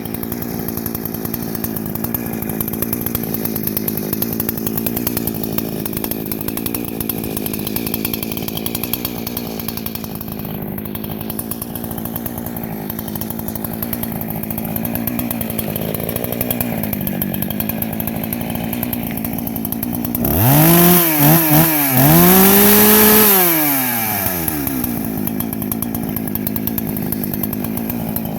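Ported Husqvarna 288XP two-stroke chainsaw with a muffler mod idling steadily, then about 20 seconds in revved hard: a quick blip and dip, then held near full throttle for a second or two before falling back to idle.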